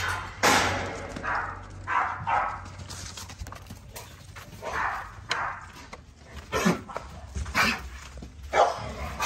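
American Bully dog barking repeatedly, short separate barks about once a second.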